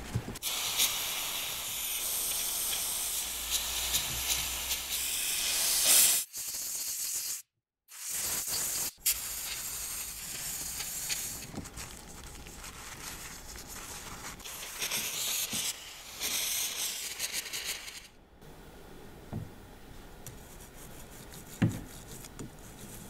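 Cloth rubbing over small metal starter-motor parts as they are wiped clean: a scratchy hiss in strokes that comes in two long stretches, then eases to a few soft knocks near the end.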